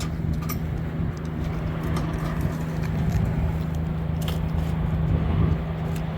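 Vehicle engine running steadily at idle, a constant low hum, with a few faint clicks over it.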